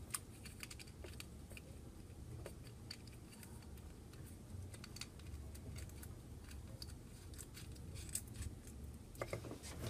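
Faint scattered clicks and light handling noise of hands screwing an antenna onto a small FPV video transmitter and plugging its small LiPo battery lead in.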